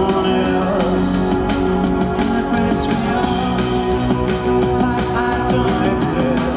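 Live rock band playing, with a man singing over sustained keyboard chords and a drum kit.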